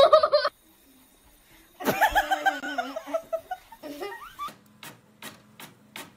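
A person laughing in quick, choppy bursts, followed by a string of short, sharp taps.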